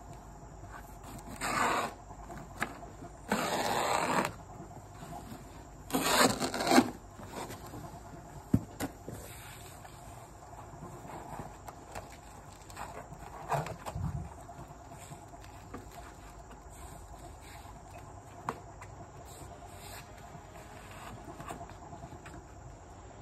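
Sheets of pool stair foam being handled and rubbed against the concrete steps: three rustling scrapes in the first seven seconds, then a few light clicks and a dull thump. Insects chirp steadily underneath.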